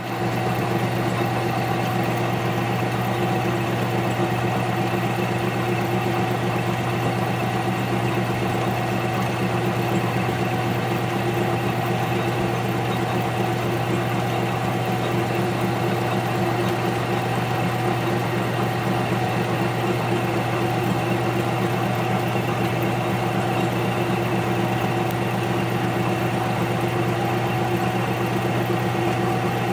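Grizzly G4015 combination lathe-mill running steadily while turning a crochet hook: a constant motor hum with a steady gear whine over it.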